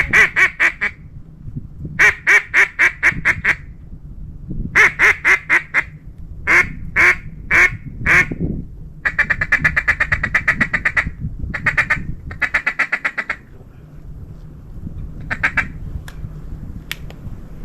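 Mallard-hen quacking: several runs of four to eight loud quacks falling away in pace, then about nine seconds in a long fast chatter of quacks lasting some two seconds, followed by a few more short runs.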